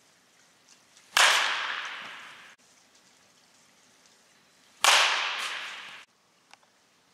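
Baseball bat hitting pitched balls: two sharp cracks about three and a half seconds apart. Each one rings on in the echo of a large indoor training hall.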